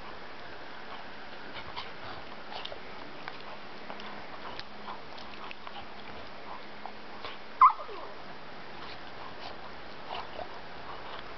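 Airedale terriers play-fighting, giving scattered faint yips and whines, with one sharp yelp that falls in pitch about two-thirds of the way through. The yelp is the loudest sound.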